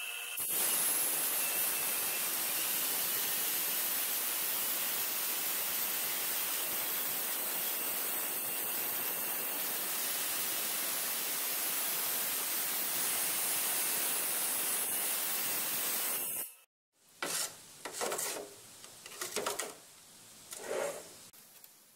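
QEP bridge wet tile saw with a DeWalt diamond blade cutting through a large-format tile: a steady grinding noise that stops abruptly about sixteen seconds in. A few short knocks follow.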